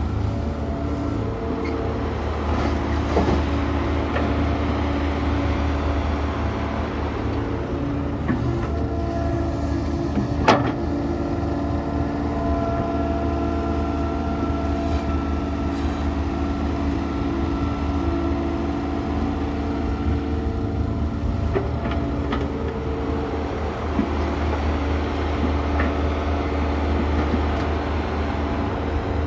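Kobelco SK120-1 hydraulic excavator's diesel engine running steadily at work, its note shifting a little in pitch now and then. A single sharp knock comes about ten seconds in, with a few lighter clicks elsewhere.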